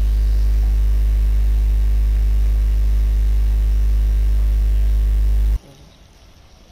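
Loud, steady electrical mains hum with a buzzy row of overtones, interference in the recording. It cuts off suddenly about five and a half seconds in, leaving only a faint background.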